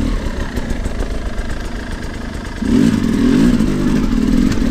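Dirt bike engine running and revving, getting louder and revving harder from a little past halfway through.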